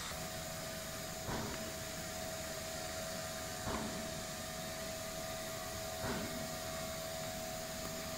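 Excitech 5-axis CNC router's spindle running as it machines a wooden workpiece: a steady whine over a constant hiss. The cutting noise swells briefly about every two and a half seconds, three times.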